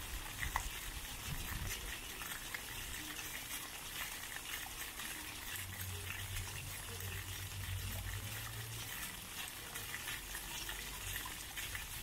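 Small ground-level fountain jets spurting up and splashing steadily back onto wet paving stones, a continuous hiss of falling water with little scattered drips.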